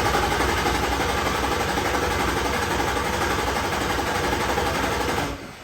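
Nissan VQ35DE V6 cranking over on the starter in a fast, even rhythm without catching, then cutting off suddenly near the end. The engine gets crank, spark and fuel but will not start.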